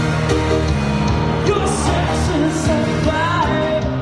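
Pop-rock music with a singing voice and a steady beat.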